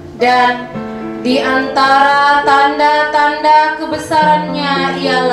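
A woman singing into a microphone in long, ornamented melodic phrases, over steady sustained instrumental tones that change pitch every second or two.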